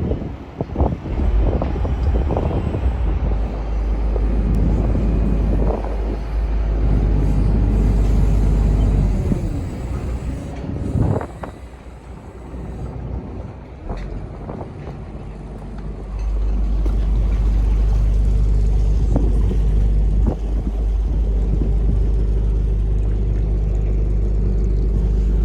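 Lobster boat's engine running with a low rumble, wind buffeting the microphone, and scattered knocks in the first half. The engine dips for a few seconds, then grows louder about two-thirds of the way through and runs steady.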